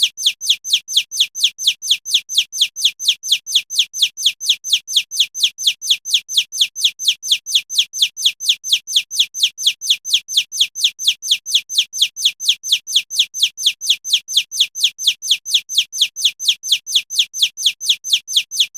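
Looped stock sound effect: a short, high chirp that falls in pitch, repeated evenly about four times a second.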